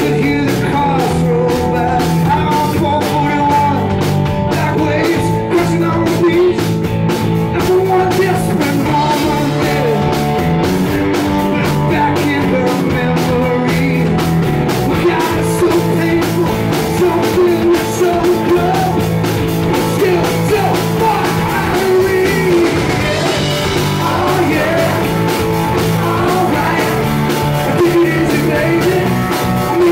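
Live rock band playing: a male voice singing over a Les Paul-style electric guitar, bass and a steady drum beat.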